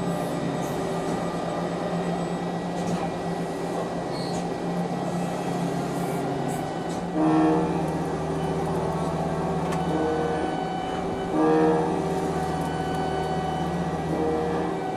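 CNC machine running: a steady machine hum with several held tones, which grows louder with a brighter pitched tone twice, about halfway through and again a few seconds later.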